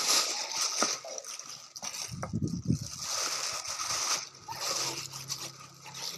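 Dye-soaked batik cloth and a white plastic sack handled wet, making splashing and rustling in uneven waves. A low rumble comes about two seconds in, and a faint low hum runs through the second half.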